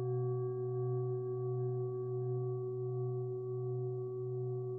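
Singing bowl ringing in a long sustained hum, its low tone wavering slowly and regularly, one high overtone fading out about halfway through.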